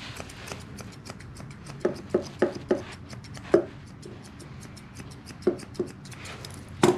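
Grooming shears snipping through a dog's coat in a quick, steady run of short clicks, several a second. A few louder snips come about two to three and a half seconds in.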